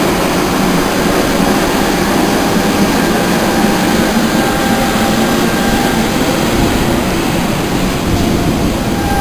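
Greater Anglia intercity train of Mark 3 coaches running through the station at speed: a loud, steady rumble and rush of wheels on the rails and air along the coaches. A faint steady whine joins near the end.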